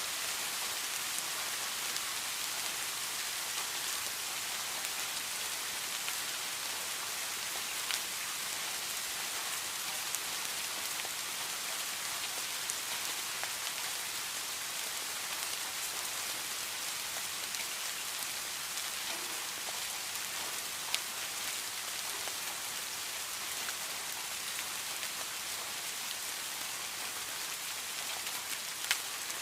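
Heavy rain falling steadily with an even hiss, with a few sharper drops striking close by now and then.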